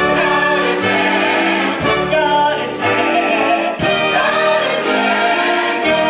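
Show-tune music with a chorus of voices singing, broken by sharp changes about every two seconds.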